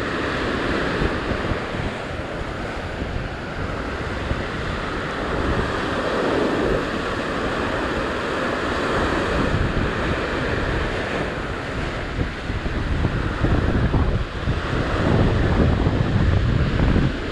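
Ocean surf breaking and washing over rocks, with wind buffeting the microphone; the rush swells louder near the end.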